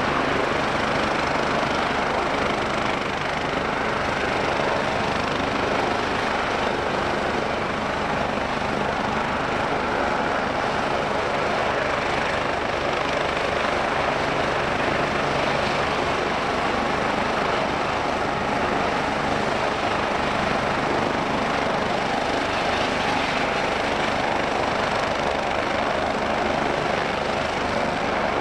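BK 117 twin-turbine helicopter running on the ground with its rotors turning: a steady turbine whine over a fast, even rotor blade beat.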